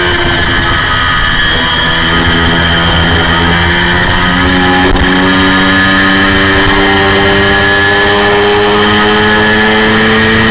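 Honda VFR400 V4 race engine screaming at high revs, around 12,000 rpm and up, heard from on board the bike. The pitch holds steady through the corner, then climbs steadily as the bike accelerates, with one sharp tick about halfway.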